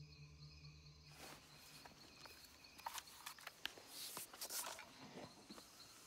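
Faint night-time outdoor ambience with scattered small clicks and short rustles. It takes over about a second in, when a low steady indoor hum stops.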